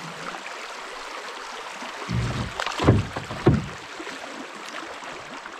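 Water rushing past a canoe running a shallow swift. About two seconds in, the hull rubs and scrapes over a rock, with two louder scrapes in quick succession: a little rub on the canoe's skid plates.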